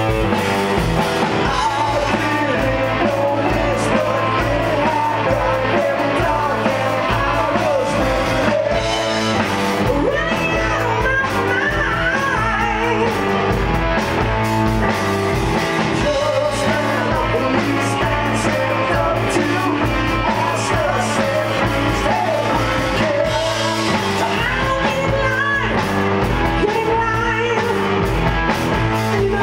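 Live rock band playing with drums, electric guitar and keyboard, and a lead singer's voice over it.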